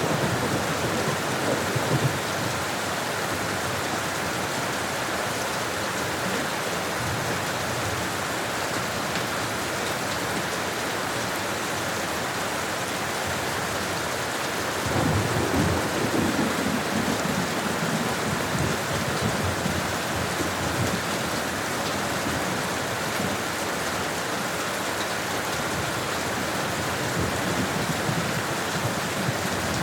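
Steady rain falling, with a low rolling rumble near the start and a longer one about halfway through.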